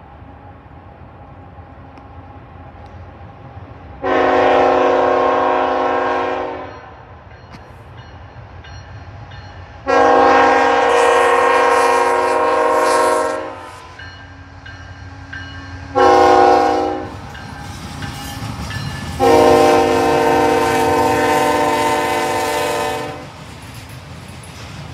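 Freight locomotive's air horn sounding the grade-crossing signal: two long blasts, a short one and a final long one, each a chord of several tones. Under it the approaching train rumbles, and near the end the autorack cars roll past with a clickety-clack.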